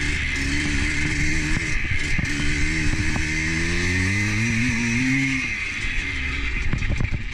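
A motor vehicle's engine running under acceleration. Its pitch climbs steadily from about two and a half seconds in, then drops off a little after five seconds as it eases off.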